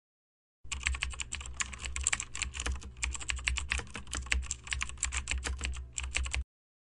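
Rapid typing on a computer keyboard: a quick, uneven run of key clicks over a low hum. It starts suddenly about half a second in and cuts off abruptly near the end.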